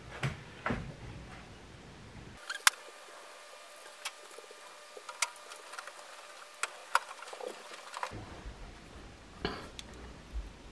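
Faint scraping and rustling from a cardboard-framed pleated furnace air filter being worked into place inside a sheet-metal furnace cabinet, with a few sharp clicks and taps, the loudest about three seconds in.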